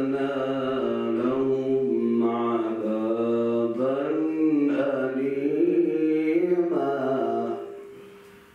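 A man reciting the Quran in melodic tajweed style, drawing out long sung notes whose pitch rises and falls. The phrase ends about a second before the end and trails off.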